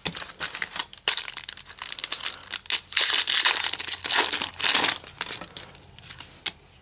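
Foil trading-card pack wrapper being crinkled and torn open, a dense crackling rustle that is loudest in the middle and then stops, leaving a few faint clicks.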